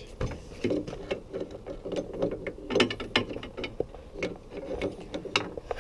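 Irregular mechanical clicking and ratcheting as the LinQ quick-release fasteners holding a snowmobile auger mount are worked loose and pulled out.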